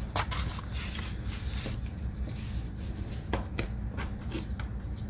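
Scratch-off lottery tickets handled and scraped with a coin: scattered short scrapes and taps over a steady low hum.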